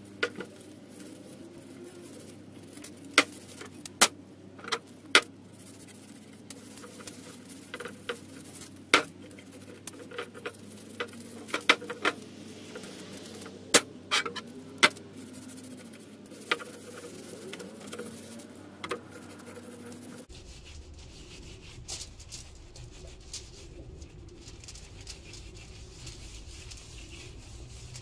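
Cast iron grill grates being greased by gloved hands on aluminium foil: scattered sharp clicks and knocks as the grate shifts on the table, over soft rubbing and foil rustle. The clicks come thick for about twenty seconds, then thin out.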